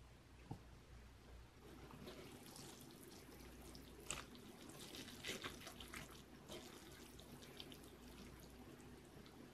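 Faint wet squishing and clicking of sauce-coated Buldak stir-fried noodles being lifted and dropped back into a tray while being mixed, the clicks scattered and clearest about four seconds in and again a second later.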